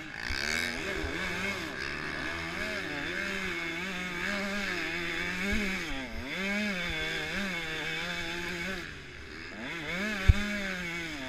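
Motocross bike engine heard close from an on-board camera, revving up and down over and over as the throttle opens and closes through a rough sand track. One sharp thump near the end.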